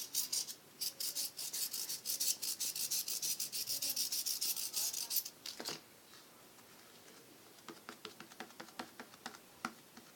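Styrofoam beads being poured out of a container onto slime: a dense, rapid rattling hiss for about five seconds, then only scattered faint ticks.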